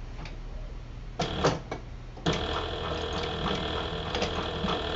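Sailrite Fabricator industrial walking-foot sewing machine starting up about two seconds in and running at a slow, steady speed, stitching through a thick stack of denim layers. A couple of light clicks come just before it starts.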